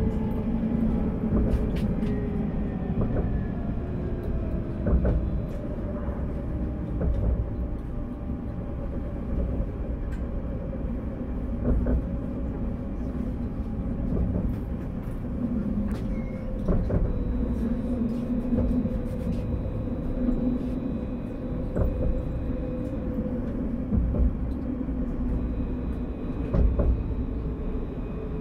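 Tram on Paris line T3a running along its track: steady low wheel-on-rail rumble with an electric traction motor whine that falls in pitch over the first few seconds, then holds, and a few scattered clicks.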